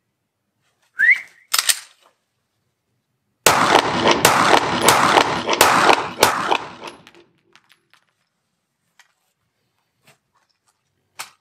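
CZ P-10 F pistol fired five times, the shots about two-thirds of a second apart, each ringing on in the echo of the range walls. A couple of short clicks come before the shots as the slide is racked to chamber a round.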